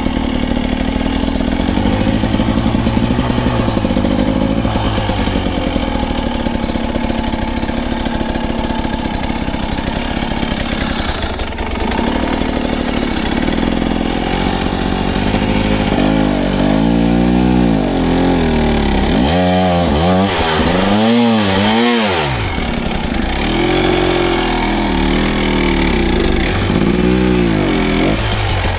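Dirt bike engine running, revved up and down over and over through the second half as the bike is worked over trail obstacles.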